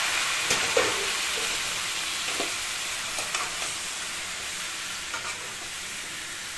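Chopped tomatoes sizzling in hot sesame oil in a large metal kadai, the sizzle fading gradually, with a metal spoon stirring and clinking against the pan now and then.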